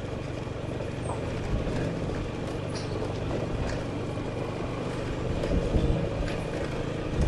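Motorcycle engine running steadily at low speed, with the tyres rumbling over cobblestones.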